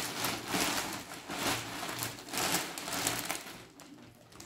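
Clear plastic garment bag rustling and crinkling in irregular bursts as a woolen top is handled inside it, dying down near the end.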